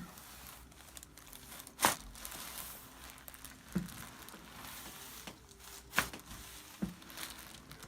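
Two sharp joint cracks from a chiropractic adjustment, about four seconds apart, over a faint crinkling rustle of the patient shifting on the table.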